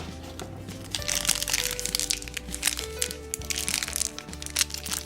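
Plastic wrapper of a small toy surprise package crinkling and crackling as it is torn open and squeezed by hand, starting about a second in, over light background music.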